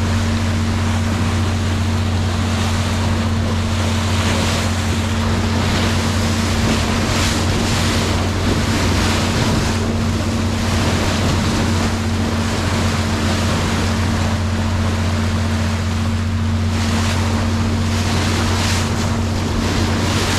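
Nordhavn 50 trawler's diesel engine droning steadily as the boat runs at sea, under the rush of water along the hull and wind buffeting the microphone, which swell now and then.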